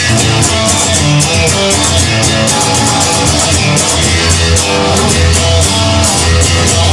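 Rock music: electric guitar and bass over a drum kit with a steady cymbal beat, no singing.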